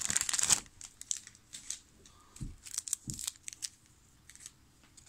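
A trading-card pack's wrapper crinkling and tearing open for about half a second, then scattered soft crinkles and clicks with two dull taps as the cards are handled.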